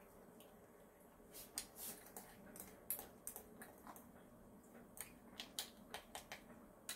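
Faint, irregular small clicks and taps at a kitten's food bowl, starting about a second in.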